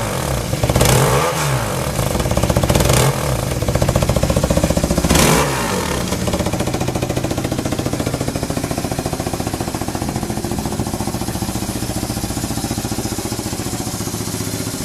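BMW R1100RT boxer-twin engine revved in about four quick throttle blips, each rising and falling back, then idling steadily with no abnormal noise.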